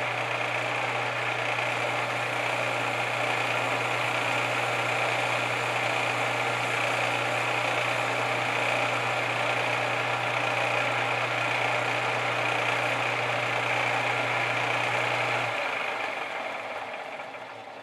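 Metal lathe running with no tool cutting, its motor and headstock giving a steady low hum under a high gear whine while the chuck spins the work. It is switched off about 15.5 seconds in: the hum stops and the lathe winds down to a stop.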